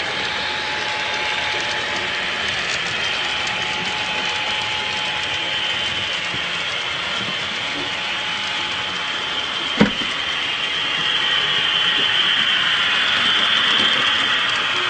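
HO-scale model trains running on the layout's track: a steady mechanical whirring and clicking of small motors, gears and wheels on rail, with one sharp click about ten seconds in. The sound grows louder over the last few seconds.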